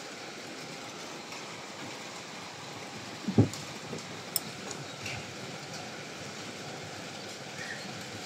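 Heavy rain falling steadily, an even hiss, with a brief low thump about three and a half seconds in.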